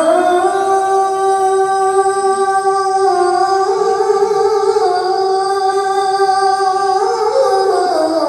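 Devotional singing of a naat: long held vocal notes that step to a new pitch a few times.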